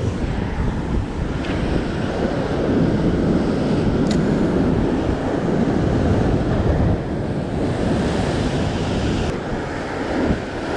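Ocean swell breaking and washing white over a rock ledge in a continuous rush of surf, with wind buffeting the microphone.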